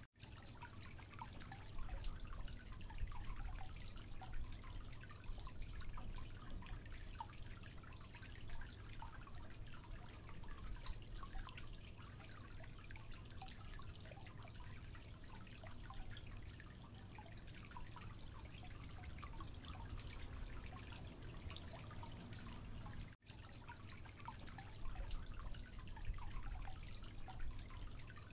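Faint water dripping: scattered, irregular small drops over a low steady hum, cutting out for an instant once.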